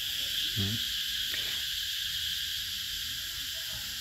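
Night insects chirring steadily and high-pitched, with a brief low hum about half a second in.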